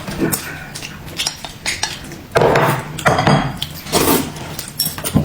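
Eating utensils clinking and knocking against plates and bowls at a meal, in irregular short clicks with a few louder knocks.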